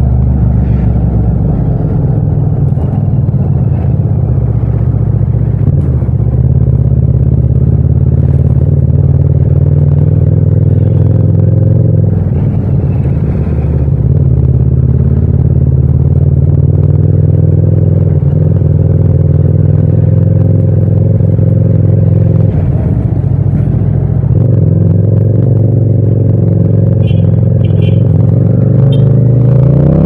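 Parallel-twin motorcycle engine running at a steady pitch while riding, heard raw without wind noise. Near the end it revs up in a rising climb as the bike accelerates.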